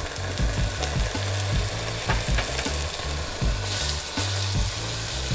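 Beef tenderloin steaks sizzling steadily in hot oil in a cast-iron pan.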